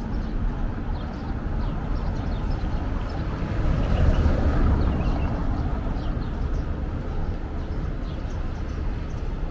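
City street ambience: a steady low rumble of road traffic, swelling a little about four seconds in.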